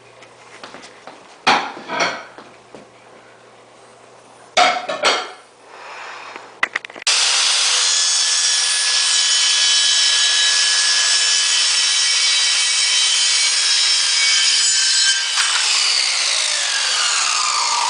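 A few knocks as a laminate plank is handled, then a power saw cutting it. The saw starts abruptly about seven seconds in and runs loud and steady. About two seconds from the end its pitch falls as the blade winds down.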